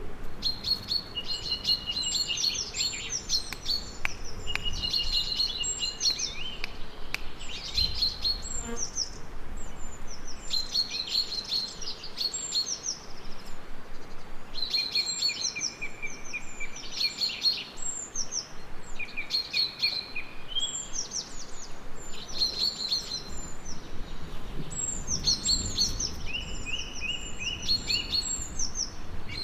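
Several songbirds singing and chirping, overlapping phrases of quick high notes and short trills repeating every second or two.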